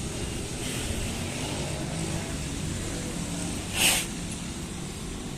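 Steady low outdoor rumble, with one short, loud hiss about four seconds in.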